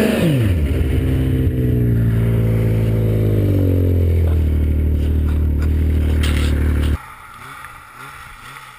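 Snowmobile engine running hard in deep snow: the revs drop quickly at the start, then hold at a lower speed and sink slowly. About seven seconds in the engine sound cuts off abruptly, giving way to a much quieter, uneven sound.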